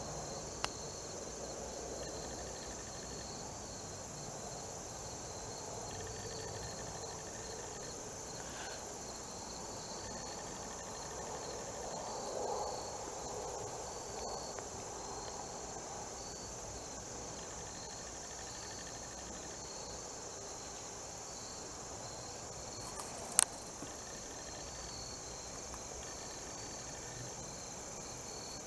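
Steady chorus of insects in the woods: a continuous high buzz with a pulsing, trilling cricket-like call beneath it. A single sharp click sounds about 23 seconds in.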